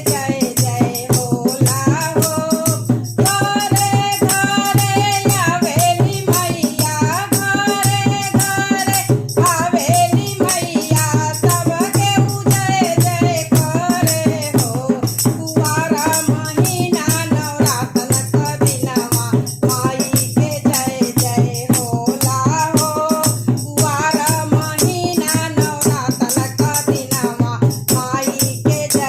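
A woman singing a Bhojpuri devi geet, a folk devotional song to the goddess for Navratri, over a fast, steady rattle-like percussion beat.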